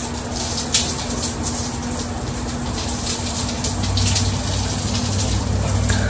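Shower water running steadily and splashing on a person rinsing off, with a few brief louder splashes and a faint steady low hum underneath.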